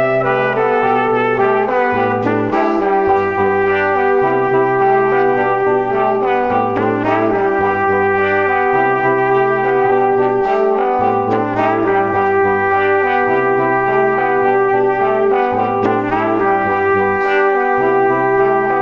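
Background music from a brass quartet of trumpets and trombones playing slow, sustained chords, with a long held middle note and a low part moving from note to note underneath.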